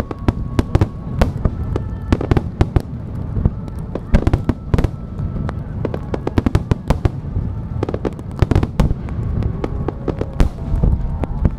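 Fireworks finale: many aerial shells and star mines bursting in quick, irregular succession, sharp bangs one after another over a continuous low rumble.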